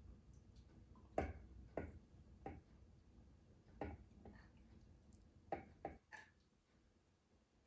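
Faint clicks and taps of a spoon knocking against a tahini jar and a measuring cup as thick tahini is scooped out, about half a dozen, unevenly spaced.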